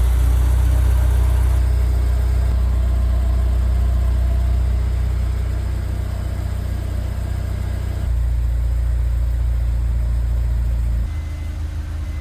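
Honda S2000's four-cylinder engine running with a steady low drone, which changes abruptly about eight seconds in and drops in level about eleven seconds in.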